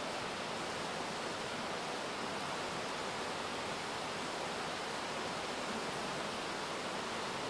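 Steady rain falling, an even rushing hiss that holds at one level throughout.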